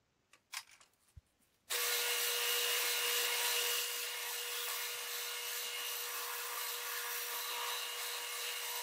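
A brief hiss of WD-40 sprayed on as cutting fluid, then about two seconds in a benchtop drill press starts abruptly and runs steadily with a constant hum, its bit drilling through aluminum plate and square tube.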